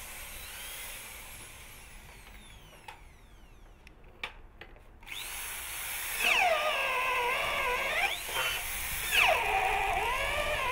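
Power drill driving an Irwin Blue Groove wood bit into a wooden beam, in two runs starting about six seconds in. The motor's whine sinks in pitch as the bit bites into the wood and rises again as the load eases.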